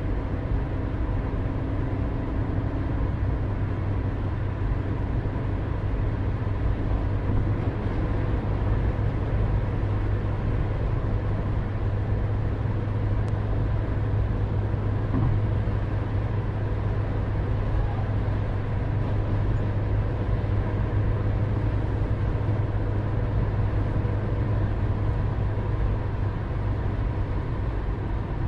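Steady low rumble of outdoor background noise with a faint constant hum, unchanging throughout.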